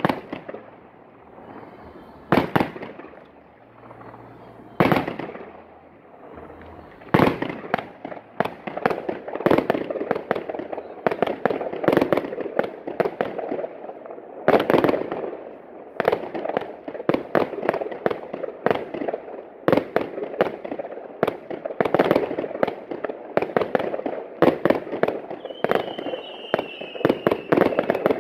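Fireworks display: shots launching and bursting overhead with sharp bangs and crackle. A few widely spaced bangs come in the first seven seconds, then a rapid, continuous run of shots. A whistle falls in pitch near the end.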